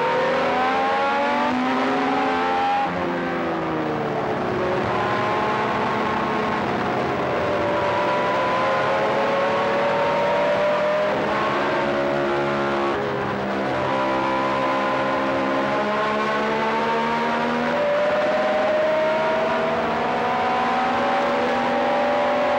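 A Matra V12 Formula One engine heard onboard at racing speed, its high, multi-toned note climbing slowly as the car pulls, with several sudden drops in pitch at gear changes or lifts, over steady wind and road noise.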